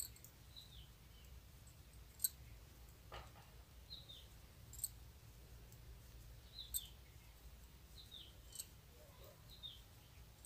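Faint, sparse clicks of knitting needles as stitches are purled, about one every two seconds, with a few short high chirps in between over a low background hum.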